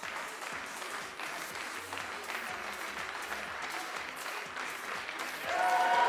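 Spectators applauding. About five and a half seconds in, louder music with held notes comes in over the applause.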